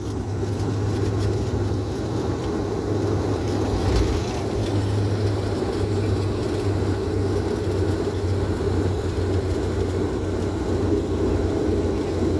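Airliner cabin noise heard from a window seat as the plane rolls along the ground after landing: a steady low hum of the engines with airflow and rumble. There is a brief thump about four seconds in.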